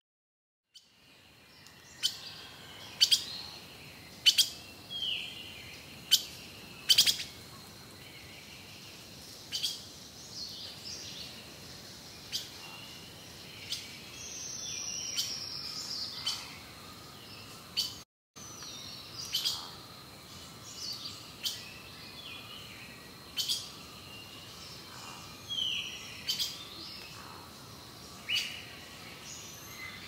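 Wild birds chirping outdoors, starting about a second in: short, sharp chirps come roughly once a second, with a longer falling whistle about halfway through, over a faint steady hiss.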